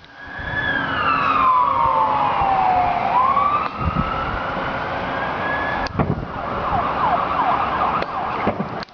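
A wailing siren: one tone slides slowly down for about two and a half seconds and then climbs back up. It is followed by a flurry of short sliding whistles near the end.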